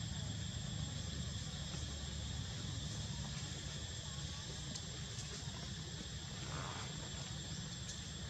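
Steady outdoor insect chorus, a constant high-pitched buzzing, over a low rumble.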